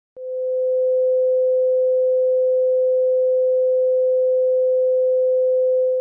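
Steady electronic test tone at one unchanging pitch, the beep played over television colour bars; it switches on with a brief click.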